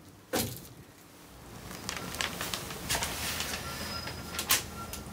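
A sharp thump, then a sheet of paper being handled: rustling and crackling that grows louder, with one louder crackle about four and a half seconds in.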